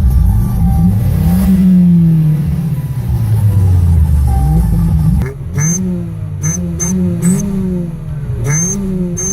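Modified car engine being revved, its pitch climbing and falling. From about five seconds in come quicker throttle blips about once a second, with sharp clicks among them.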